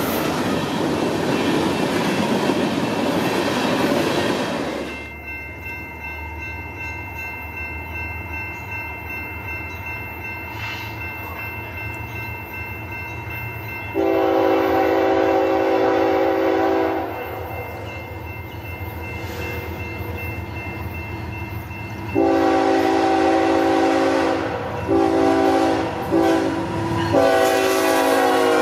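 Freight cars rolling past close by, with steady wheel and rail noise, until a cut about five seconds in. Then an approaching BNSF freight train's locomotive horn sounds a multi-note chord: one long blast, and later a longer sequence of long and short blasts as the lead locomotives pass.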